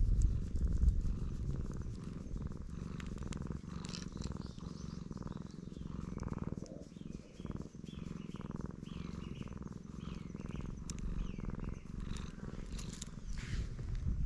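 Black cat purring loudly and steadily, a continuous pulsing rumble, while being scratched under the chin: the purr of a contented cat enjoying being petted.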